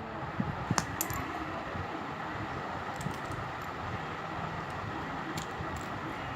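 Light clicks and taps of a fidget spinner and its cap being handled and pried apart, a few sharp ones in the first second and scattered ones later, over a steady background hiss.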